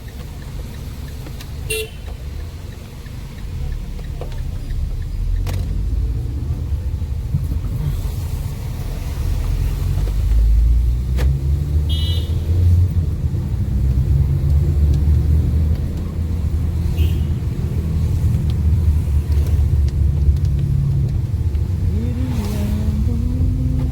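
Steady engine and road rumble heard from inside a Fiat Linea while driving, growing louder about ten seconds in, with a few short car-horn toots from traffic.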